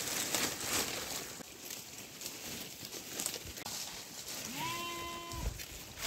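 A sheep gives a single bleat about a second long near the end, rising at its onset and then held, over a steady rustling background noise.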